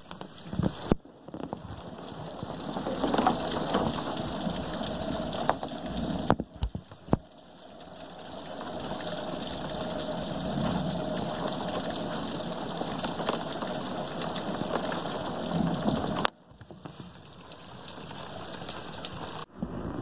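Rain beating against a window pane: a steady, noisy hiss with a few sharp taps. It cuts off abruptly and resumes several times.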